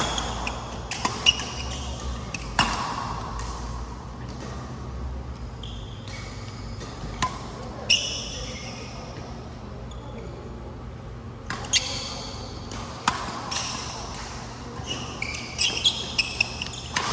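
Badminton rackets striking a shuttlecock in a singles rally: sharp hits a second or more apart, mixed with the squeak of shoes on the court floor. There is a lull of a few seconds in the middle.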